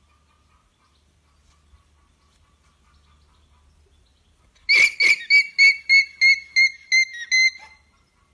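Alpaca giving its alarm call, a warning of danger: a rapid run of about nine shrill, high-pitched calls, roughly three a second, starting about halfway in and lasting some three seconds.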